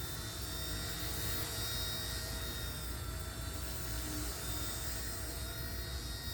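Firefox C129 flybarless micro RC helicopter in flight: its small electric motors and rotor give a steady whine over a low rumble.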